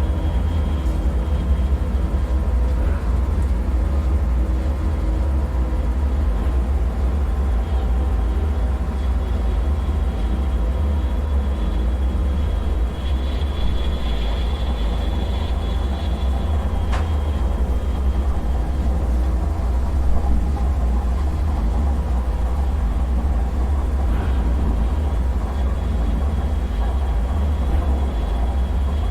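Dark ambient bunker soundscape: a steady, deep rumbling drone with faint sustained tones and a thin high whine above it, and a single short click about 17 seconds in.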